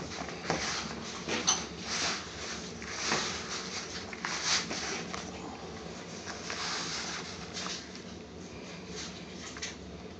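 A hand mixing and squeezing chapati dough of atta flour and water in a bowl, at the rough, crumbly stage: irregular soft strokes of rustling and squishing, some louder than others.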